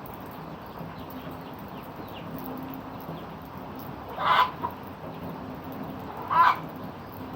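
Steady rain, with two short bird calls about four and six seconds in.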